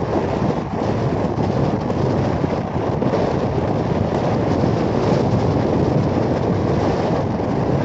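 Steady rushing wind noise on the microphone of a moving Royal Enfield 350 motorcycle, with the noise of the ride underneath.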